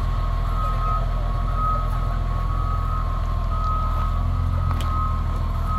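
Wheel loader's diesel engine running steadily, with a high-pitched backup alarm beeping over it.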